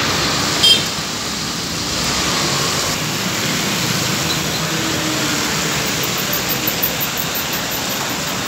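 Steady traffic noise from cars, scooters and auto-rickshaws passing on a rain-wet road, their tyres and engines blending into an even hiss. A brief sharp sound stands out under a second in.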